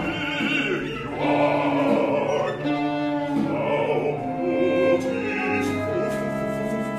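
Contemporary opera music: a small chamber ensemble holds long sustained notes under sung voices with vibrato. The vibrato voices come forward about six seconds in.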